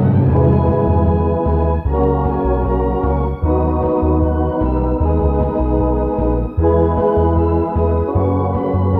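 Instrumental music on an organ-toned keyboard: held chords over a bass line that steps to a new note about every half second, with the chord changing every second or two.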